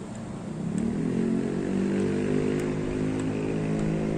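A motor vehicle's engine close by. It grows louder and rises a little in pitch about half a second in, then holds a steady note.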